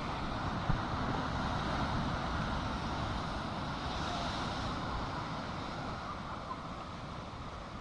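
Sea surf rushing steadily, with wind rumbling on the microphone.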